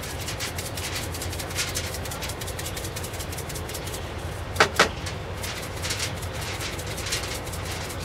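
Hand-cranked pepper grinder being turned over food: a long run of quick, gritty clicks, with two sharper knocks about halfway through. A steady low hum runs underneath.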